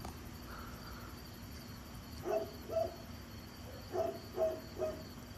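Night insects chirring steadily in a high, even trill. Over it, an animal gives short hoot-like notes, two about two seconds in and three more about four seconds in.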